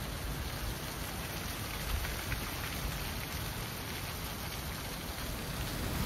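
Wind blowing dry fallen leaves, which rustle and scrape across an asphalt road: a steady hiss with a few faint crackles about two seconds in.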